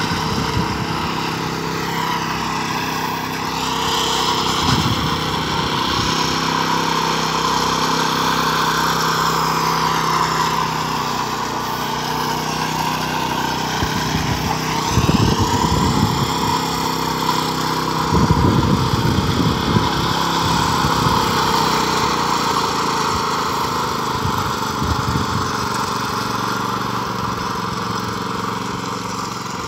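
Small engine of a walk-behind concrete power trowel running steadily as its blades float and smooth a fresh slab, the engine speed rising and falling a few times.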